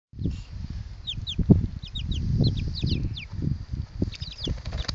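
Chickens cheeping: many short, high calls that slide downward, coming quickly one after another, over a low uneven rumble.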